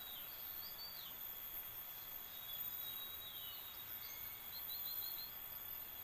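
Forest ambience: a steady high-pitched insect drone with a few faint bird chirps over it, a falling whistle about a second in, another near three seconds, and a quick run of about five short notes near five seconds.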